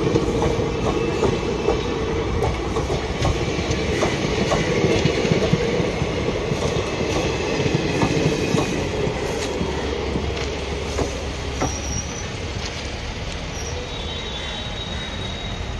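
Indian Railways passenger coaches rolling past on the rails, their wheels clicking over the rail joints with some high wheel squeal. The sound slowly fades as the last coach draws away.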